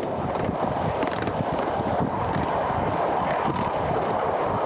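Steady running noise of a ride-on miniature train rolling along its track, with a few faint clicks.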